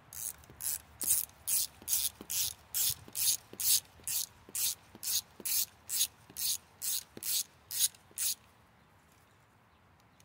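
Hand ratchet wrench with a socket extension backing out a loosened engine bolt: the pawl clicks in a quick burst on each return swing, about two swings a second, stopping about eight seconds in as the bolt comes free.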